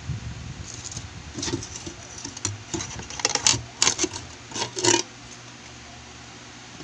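Irregular clicks, taps and clatters of hands handling the glass terrarium and its fittings, coming in a quick run that is loudest three to five seconds in, then stopping.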